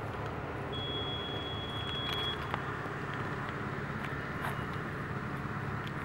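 Steady outdoor background rumble with a few faint ticks, likely the camera operator's footsteps on gravel and sand, and a thin high steady whistle lasting about a second and a half near the start.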